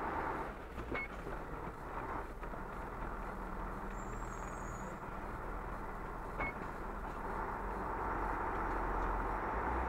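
CAS 20 S2Z Terno fire truck driving, its engine running steadily with road and tyre noise, and two light clicks, about a second in and again past the middle.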